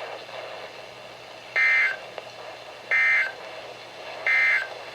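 Three short bursts of SAME digital data tones, about 1.3 s apart, from a NOAA Weather Radio broadcast heard through a radio's speaker. This is the end-of-message code that closes the severe thunderstorm warning.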